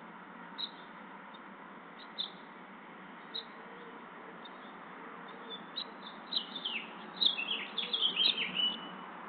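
Bird chirping: a few single short chirps, then about six seconds in a quick run of many short, falling chirps, over a steady background hiss.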